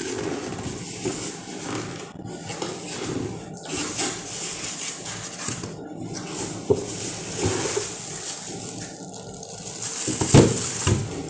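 Cardboard box and plastic packaging rustling and scraping as they are handled. The sound is loudest about ten seconds in, when the plastic-wrapped sandwich maker is pulled out of its foam packing.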